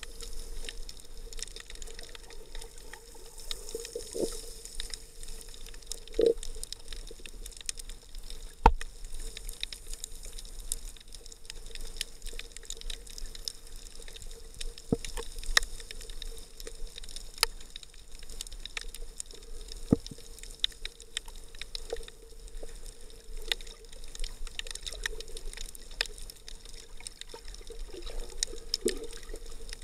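Underwater ambience muffled through an action camera's waterproof housing: a steady watery hiss with many scattered, irregular clicks and crackles.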